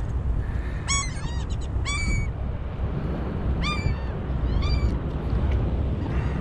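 Gulls calling overhead: clusters of short cries about a second in, around two seconds, and again near four and five seconds, over a steady low rumble.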